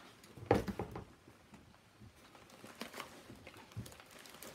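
Live adult crickets rustling and pattering in their shipping box, a mass of small scratches and ticks with a louder rustle about half a second in; no chirping.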